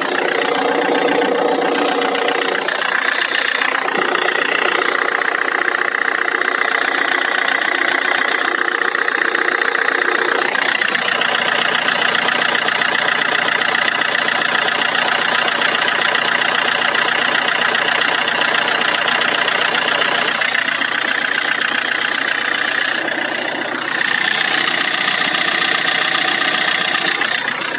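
PSA DW10CTED4 2.0 four-cylinder common-rail turbodiesel idling with a fast, steady knocking or ticking, a knock whose cause the owner is asking about. The sound changes character about three and eleven seconds in.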